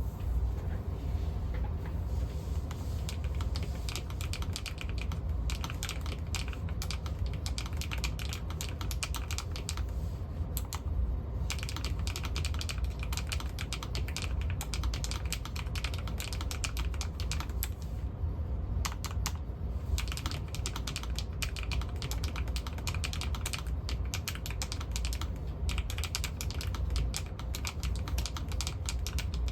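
Typing on a LOFREE Flow Lite100 low-profile mechanical keyboard with Specter switches: a fast, continuous run of keystroke clicks, with short pauses about ten and eighteen seconds in, over a steady low hum.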